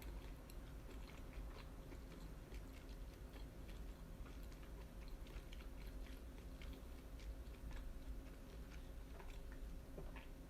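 A person chewing grilled yakitori chicken skewers with the mouth close to the microphone, making many small irregular clicks, over a steady low hum.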